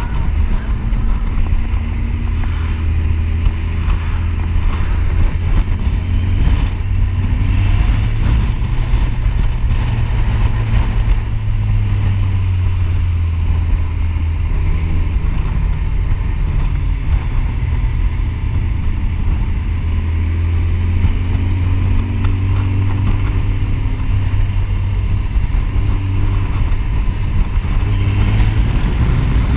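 Sport motorcycle engine running while riding along, a low steady drone that rises and falls a little in pitch with the throttle.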